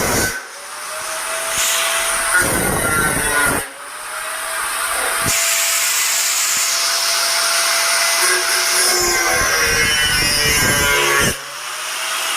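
Ingco 750-watt angle grinder running, its motor whine dropping out three times and rising back up to speed after each. Between these there are stretches of rougher, louder noise.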